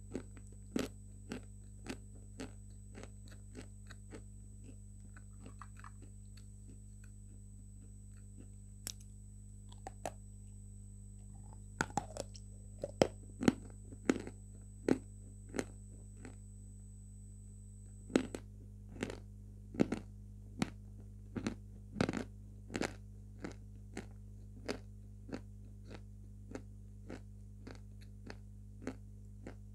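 A person biting and chewing a brittle white food: sharp, crisp crunches at an irregular pace, coming thickest and loudest from about twelve to twenty-three seconds in.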